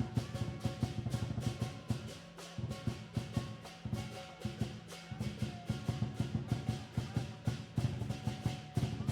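Music driven by fast, even drumming, several hits a second, with a held melodic line above; the low drums drop out briefly twice.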